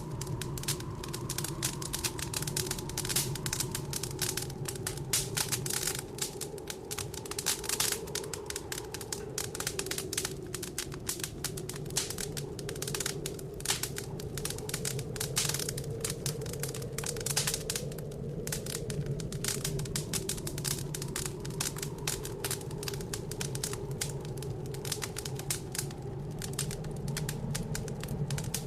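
Wood fire crackling in a fireplace, with dense, irregular pops and snaps. Under it runs a steady, slowly wavering blizzard wind howl.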